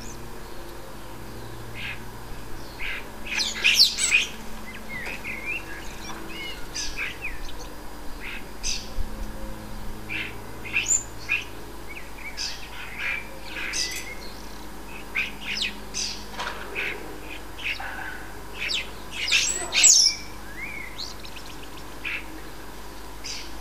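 A group of common starlings chattering continuously while squabbling, a busy stream of short chirps, clicks and harsh squawks, loudest about four seconds in and again near twenty seconds.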